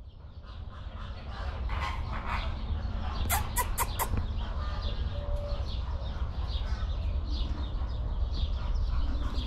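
Birds calling in a continuous chatter of short, quickly repeated chirps, over a low rumble, with four sharp clicks in quick succession about three and a half seconds in.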